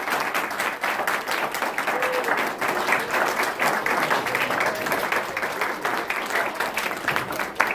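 A small audience applauding: many hands clapping in a steady patter that holds throughout.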